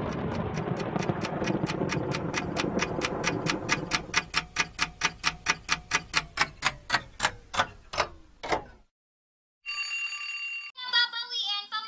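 Clock ticking, quick at first and then slowing until it stops, over a rushing noise like rain that fades out in the first half, with a low tone sliding downward under the last ticks. After a short silence an alarm clock rings steadily for about a second, and singing with music starts near the end.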